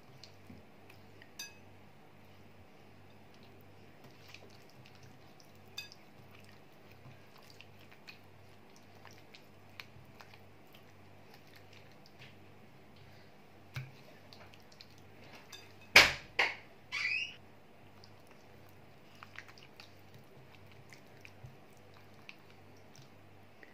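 A hand working a wet, oily spice marinade into whole fish in a glass bowl: faint squelches and small clicks, then a few sharp knocks and a ringing clink against the glass bowl about sixteen seconds in. A faint low hum runs underneath.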